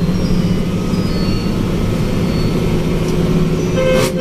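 Hino AK8 bus's diesel engine droning steadily under way, heard from inside the cab, with road noise. Near the end there is a sharp knock and a horn starts sounding.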